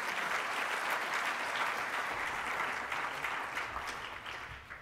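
Audience applauding, a steady patter of many hands clapping that fades away near the end.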